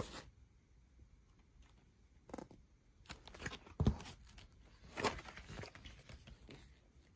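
Cardboard gatefold LP sleeve being handled and opened: a series of short rustles and scrapes, with a soft thump about four seconds in.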